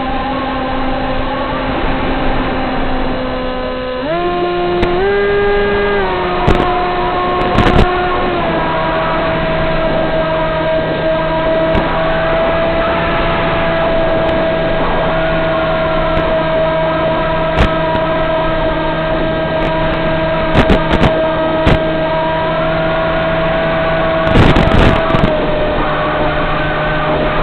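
Electric motor and propeller of a Z84 flying wing in flight, heard from on board: a steady hum that steps up in pitch a few times about four to six seconds in, eases slightly around eight seconds, then holds steady. A rush of air and scattered sharp crackles run over it.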